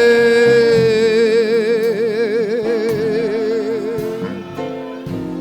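Worship music: a single voice holding one long sung note whose vibrato grows wider, ending about four seconds in, over steady held keyboard-style chords.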